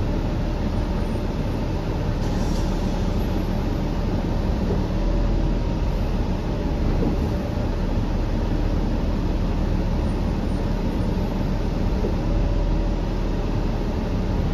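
Steady cabin noise inside a 2013 Gillig BRT transit bus, its Cummins ISL9 diesel engine running as a low, even drone.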